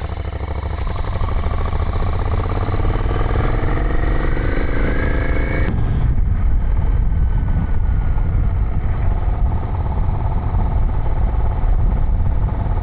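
Royal Enfield 650 parallel-twin motorcycle engine under way, its pitch rising steadily as it accelerates for about six seconds, then dropping suddenly to a lower, steady running note. A low rumble runs underneath.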